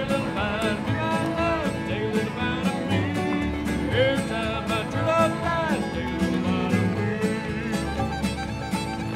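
Old-time string band playing a contra dance tune live: fiddle melody over guitar and upright bass, with a steady beat.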